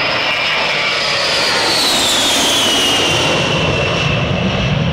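Boeing KC-135 Stratotanker's four jet engines in a very low flyby: a loud, steady jet roar with a high whine that falls in pitch as the tanker passes, and a deeper rumble building near the end.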